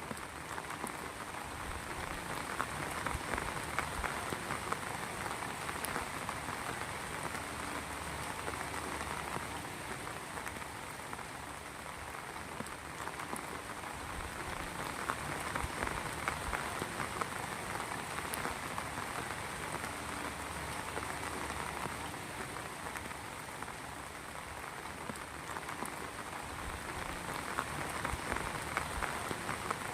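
Steady rainfall, a dense patter of drops that swells a little and eases every ten seconds or so.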